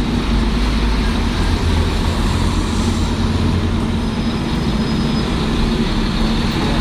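Heavy vehicle running close by: a steady low rumble with a constant hum.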